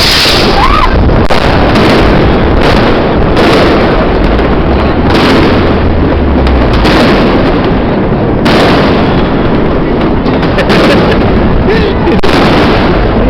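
Many fireworks going off at once: a loud, unbroken barrage of overlapping bangs and crackles from rockets and firecrackers.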